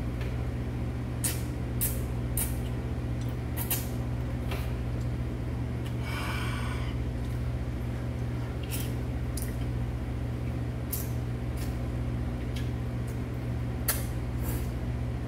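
A person eating cold wheat noodles in icy broth from a steel bowl: metal chopsticks click against the bowl again and again, with one slurp of about a second, six seconds in. A steady low hum runs underneath.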